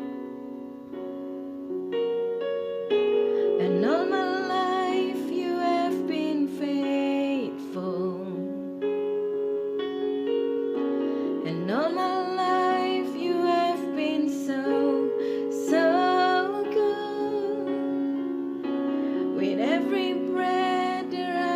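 Music: sustained keyboard chords under a woman's singing voice that swoops up into long held notes with vibrato about every eight seconds, with no clear words.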